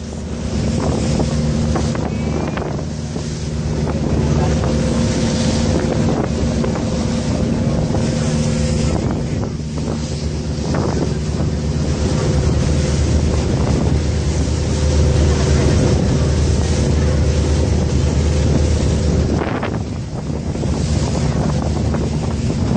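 Engine of a motorized outrigger ferry boat droning steadily underway, with wind buffeting the microphone and water splashing against the hull and outrigger.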